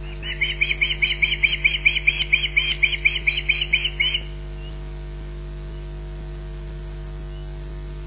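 Osprey giving a rapid series of about twenty high warning chirps, roughly five a second, which stops abruptly about four seconds in: alarm calls at corvids harassing the nest. A steady electrical hum and hiss from the nest-camera feed runs underneath.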